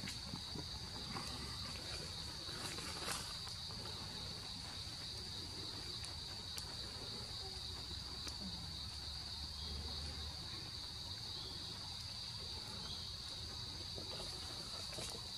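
Steady high-pitched drone of an insect chorus, unbroken throughout, with a few faint clicks.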